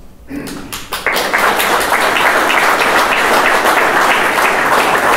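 Audience applauding, swelling about a second in and then holding steady.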